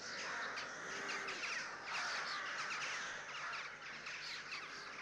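Birds chirping: many short, quick calls overlapping in a steady chorus.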